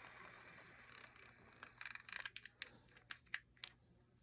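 Faint light clicks and taps of small metal reel parts and a screwdriver being handled, after a soft scraping hiss that fades out in the first second or so.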